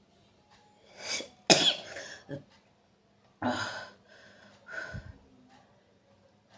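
A woman sneezing, brought on by pepper powder in her nose: a rising intake just before a sharp, loud sneeze about a second and a half in, then a second sneeze about three and a half seconds in and a weaker third near five seconds.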